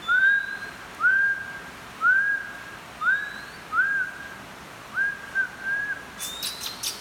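Oriental magpie-robin whistling: a clear note that rises and then holds, repeated about once a second, seven times. Near the end it breaks into a run of sharp, high chirps.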